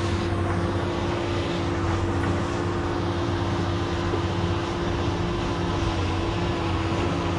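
DJI quadcopter drone flying overhead, its propellers buzzing steadily over a low hum.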